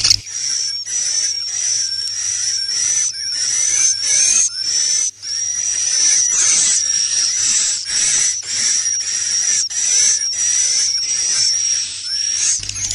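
Swiftlet roosting calls, the 'inap' lure sound used in swiftlet houses: a continuous run of high, rapid chirps and twitters repeating about twice a second.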